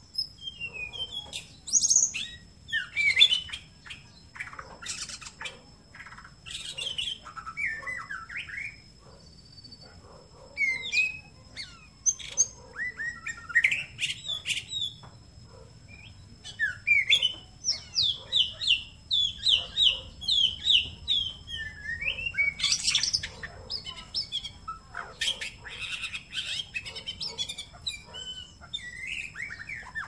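White-rumped shama singing: a varied run of loud whistled phrases and sharp calls, with a quick series of repeated downslurred notes about two-thirds of the way through.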